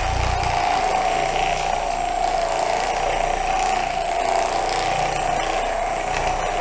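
Electric percussion massage gun running steadily with an even, held whine, working the muscles loose.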